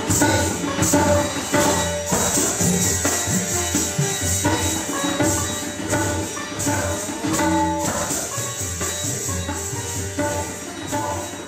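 North Indian classical music played live: hand drums in a quick rhythm under a plucked string melody, with a constant jingling of bells.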